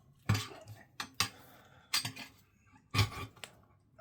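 Metal hand tools clinking and knocking: four sharp strikes, about one a second, as a screwdriver is handled.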